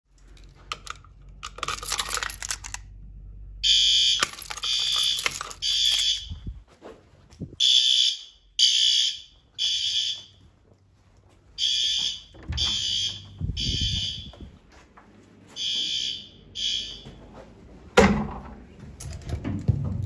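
Fire alarm horns sounding the temporal-3 evacuation pattern: groups of three short, high, buzzy blasts separated by pauses, starting a few seconds in. A sharp knock near the end.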